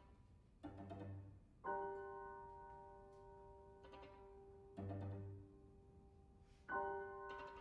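Piano trio of violin, cello and piano playing sparse contemporary chamber music built on a repeated short motif. Twice, a soft low figure is followed about a second later by a sharply struck note that rings on and slowly fades.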